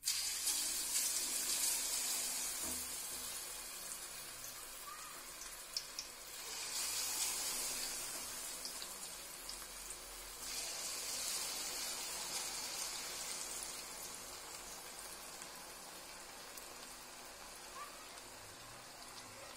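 Masala-coated pork pieces deep-frying in hot oil in a kadai: a steady, hissing sizzle. It grows louder about seven seconds in and again near ten seconds, then slowly dies down as the pakoda cook through.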